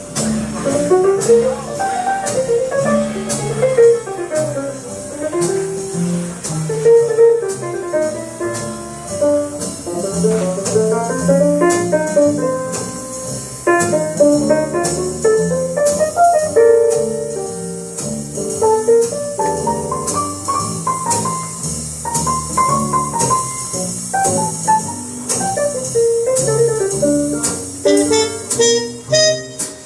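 Instrumental jazz music, with piano and guitar melody lines playing continuously.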